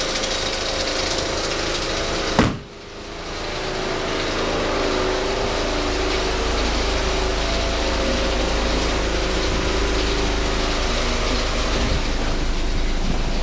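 1991 Mercedes-Benz 230 E's four-cylinder petrol engine idling steadily on a cold start. A single sharp knock about two and a half seconds in.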